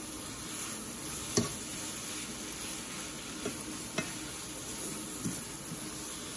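Noodles in coconut curry sauce sizzling in a hot saucepan while being stirred with a slotted spoon, which knocks against the pot four times, loudest about one and a half seconds in.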